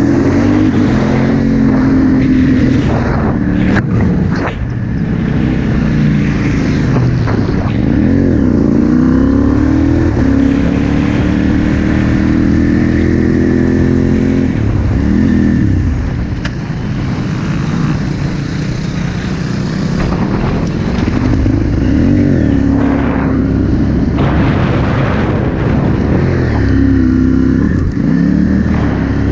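Aprilia SXV supermoto's V-twin engine at race pace on track, heard onboard: the revs climb again and again and fall sharply several times as the bike accelerates and brakes for corners.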